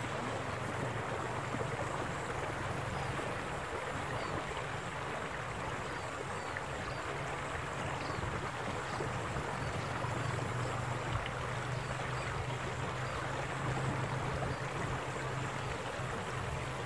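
Steady rush of water flowing along a stone-lined irrigation canal.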